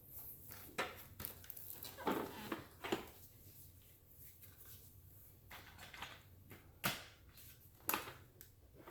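Plastic tools and parts of a Hoover Total Home Pet upright vacuum being handled and fitted, giving scattered clicks and knocks.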